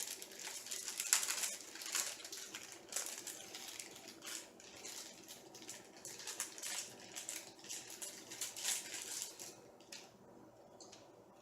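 Small metal parts and hardware being handled during 3D printer kit assembly: irregular clicks, clinks and rattles that die away about nine and a half seconds in.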